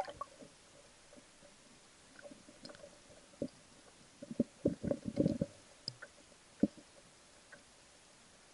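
Muffled, irregular underwater thuds and knocks picked up through a waterproof action-camera housing, bunched in a quick run about four to five and a half seconds in, with one lone knock a second later.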